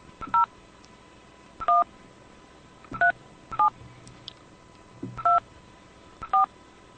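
Touch-tone telephone keypad dialing: six short two-tone beeps at uneven intervals, each with a faint button click, as a phone number is entered at a calling-card prompt.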